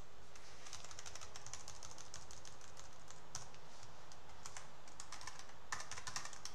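Computer keyboard typing: a long run of quick keystrokes, with a fast flurry of keys near the end.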